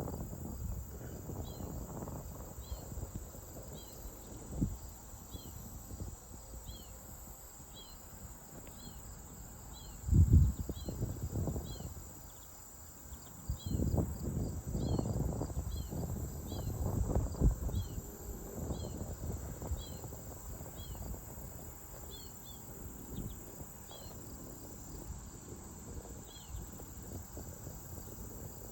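Summer outdoor ambience of insects: a steady high buzz with short falling chirps repeating about once a second. Wind gusts rumble on the microphone about ten seconds in and again a few seconds later.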